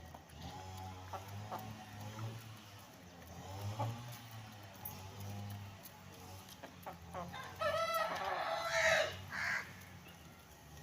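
Chickens clucking while they feed, then a rooster crows loudly about three-quarters of the way through.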